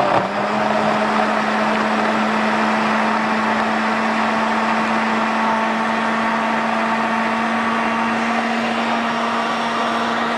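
Countertop electric blender running steadily at one speed, blending a mixture of mashed peaches, tea and ice.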